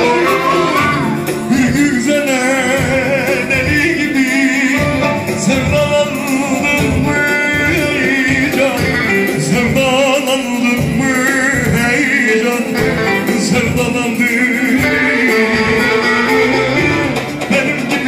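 Live Turkish arabesk song: a male voice singing with vibrato over bağlama (long-necked lute), keyboard and a steady low beat.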